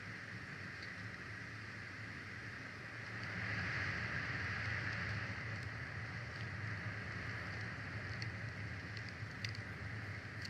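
Steady rushing outdoor background noise with a low hum underneath. It swells about three seconds in, and a few faint ticks come near the end.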